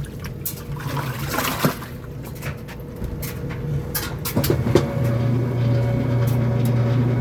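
Kenmore washing machine with water sloshing and splashing in the tub. About five seconds in, a motor starts a steady low hum, the drain pump pumping the water out.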